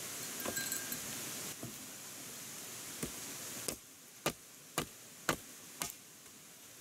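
A light metallic clink, then a series of five sharp knocks about half a second apart.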